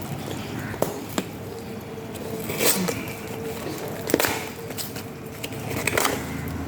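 Handling noise from an unboxing: a few sharp clicks and several rustles, as of packaging and the watch being handled, over a faint steady hum.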